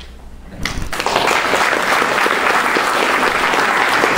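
Audience applauding, starting about a second in after a short low thump, then holding steady.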